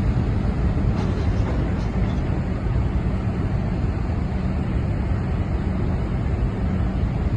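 Steady low rumble of a ship's engines, with a faint steady hum underneath and a wash of noise over it.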